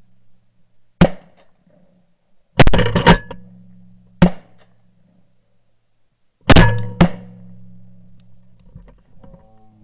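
Shotgun shots fired at geese flying overhead, in quick groups: a single shot about a second in, a rapid string of several around three seconds, another single just after four seconds, and two more close together near seven seconds.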